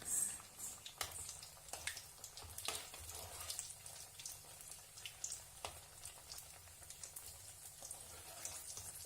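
Potato and rice-flour dough pieces deep-frying in hot oil on a low flame: a soft sizzle with many small scattered pops and crackles.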